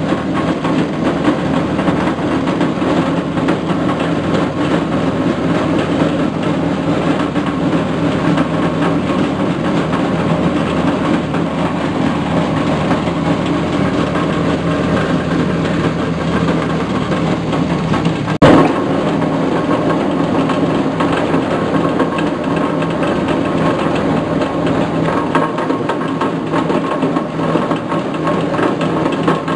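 Foam shredder driven by a small stationary engine, running steadily while foam is fed through it. One sharp knock about eighteen seconds in.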